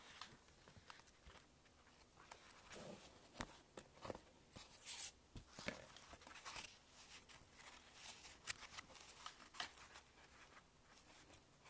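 Quiet room with faint scattered clicks and short rustles of paper being handled, and one brief louder rustle about five seconds in.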